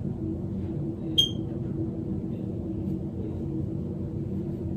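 A steady low hum, with one short, high ping about a second in.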